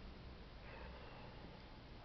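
Near silence: a faint steady hiss with a low rumble underneath.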